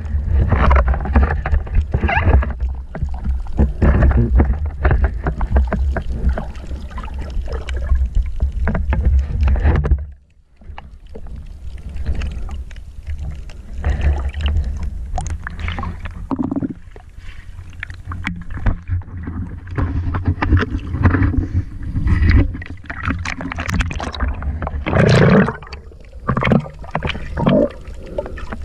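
Shallow seawater sloshing and splashing around someone wading, with a heavy low rumble of water and handling on the microphone. It drops away briefly about ten seconds in, then picks up again in uneven splashes.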